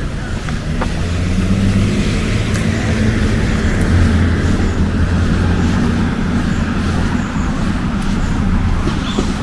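A motor vehicle driving past on the street: a steady low engine hum with tyre noise that swells over the first few seconds and then slowly eases off.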